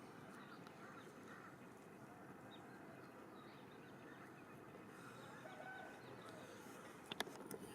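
Faint outdoor ambience with a few distant bird calls, and a couple of sharp clicks near the end.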